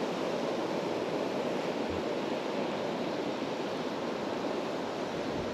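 Shallow sea water washing over a coral reef flat: a steady rush of small waves.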